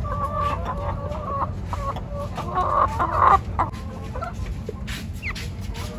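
Caged chickens, a rooster and hens, clucking and calling. The calls are held and even in the first second or so, and loudest about halfway through, over a steady low rumble.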